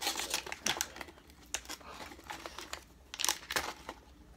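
The foil seal of a Takis crisps canister being peeled open by hand, a crinkling, tearing crackle. It comes in bursts, thickest near the start and again about three seconds in.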